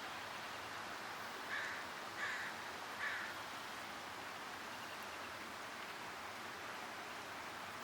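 A bird calls three times, about two-thirds of a second apart, over a steady rush of wind.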